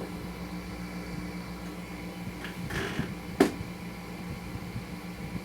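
Small parts and wiring being handled on a motorcycle engine, with a soft rustle and then one sharp click about three and a half seconds in, over a steady background hum.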